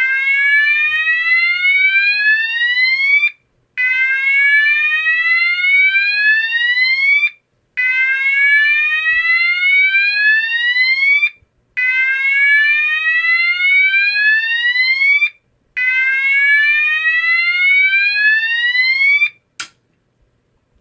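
GE AS363 fire alarm sounder sounding the slow whoop tone of NEN 2575: five rising sweeps from about 500 Hz to 1200 Hz, each about three and a half seconds long with a half-second pause between them. A single click follows the last sweep.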